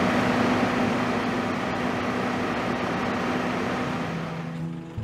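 Power Curber 5700D slipform curb machine running at work: a steady engine hum with a noisy wash over it. It fades out near the end as music comes in.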